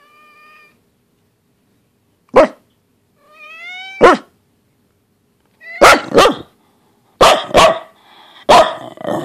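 Pembroke Welsh Corgi whining and barking loudly: a short whine, one sharp bark, a rising whine that ends in a bark, then several barks in quick pairs.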